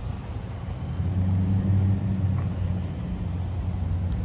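Chevrolet Tahoe's V8 engine idling: a steady low hum that gets louder about a second in.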